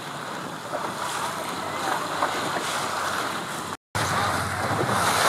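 Wind buffeting the microphone over choppy bay water washing and splashing, steady noise that grows a little louder in the second half. The sound cuts out completely for a moment just before four seconds in.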